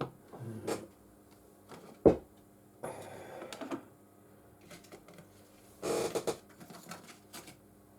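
Small clicks, taps and scrapes of phone parts and tools being handled on a workbench, with one sharp knock about two seconds in and short rustling scrapes around three and six seconds.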